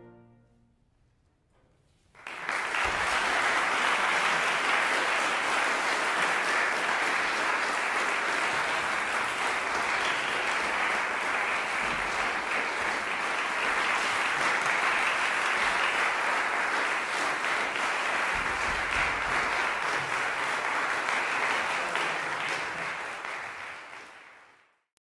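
The last chord of a brass quintet rings away into the hall, then after about two seconds of silence an audience applauds steadily, fading out near the end.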